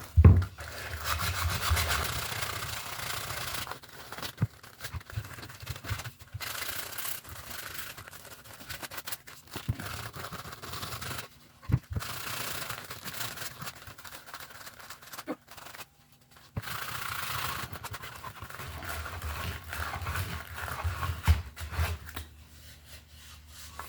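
120-grit sandpaper rubbed by hand over a wooden board in runs of strokes, stopping briefly several times. There are a few sharp knocks of the wood along the way.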